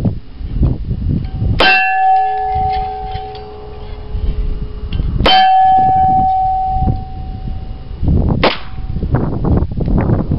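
Three shots from a Smith & Wesson pre-Model 10 K-frame .38 Special revolver, about three and a half seconds apart. After each of the first two, the steel plate target rings with a clear metallic tone for a second or two; no ring follows the third.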